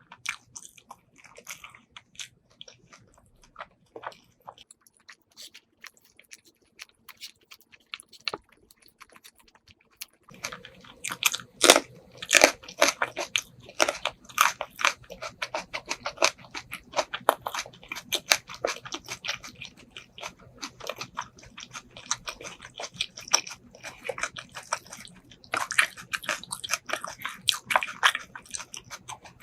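Close-miked eating of braised pork ribs and rice: a few scattered mouth clicks at first, then, from about ten seconds in, dense, louder chewing and biting with crunchy crackles.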